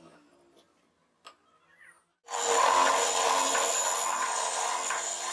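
A few light knocks as a sanding drum is fitted onto a spindle, then, about two seconds in, a homemade oscillating spindle sander starts abruptly and runs loud and steady, with a motor whine under the rubbing hiss of plywood being sanded against the drum.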